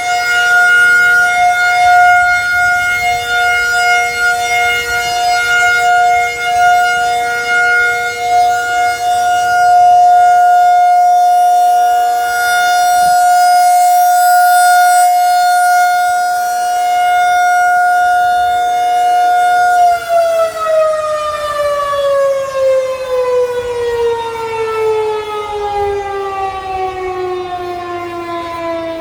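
Federal Signal 2001-SRN outdoor warning siren sounding a steady alert tone. About twenty seconds in, the pitch begins to fall slowly as the siren winds down at the end of its one-minute alert.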